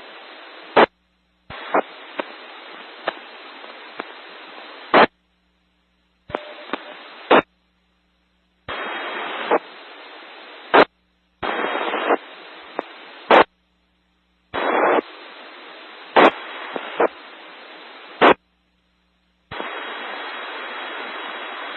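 FM two-meter radio static: the receiver's squelch opens again and again on keyed-up carriers that carry no audible speech. There are about six rushes of hiss lasting one to four seconds each, separated by dead silence. Each ends with a sharp click as the transmitter unkeys.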